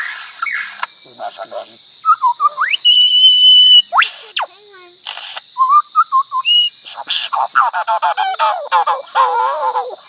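Lyrebird singing a fast medley of mimicked calls: short whistles, a held high whistle, a sharp downward sweep, brief trills, then rapid warbling near the end. A steady high insect drone runs behind it.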